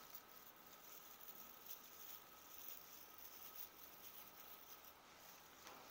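Near silence with faint, scattered rustling and crackling of an artificial Christmas tree's branches being bent and spread out by hand, over a faint steady high-pitched tone.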